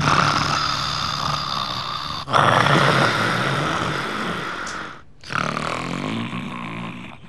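A woman snoring loudly: three long snores of two to three seconds each, each starting strong, fading, and cutting off suddenly.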